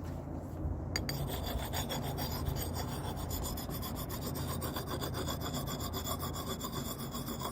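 Hand sharpening stone rubbed back and forth along a hatchet's steel edge: a dry rasping scrape in quick repeated strokes, starting about a second in.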